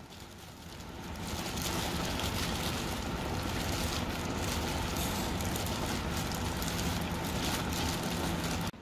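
Steady background rush and low hum of a restaurant dining room, starting and stopping abruptly.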